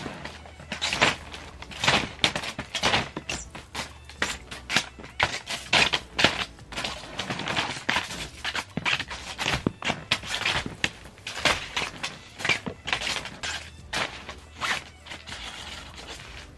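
Brown kraft paper crinkling and rustling in irregular bursts, several a second, as a wand toy's string is dragged across it and a cat swats at it.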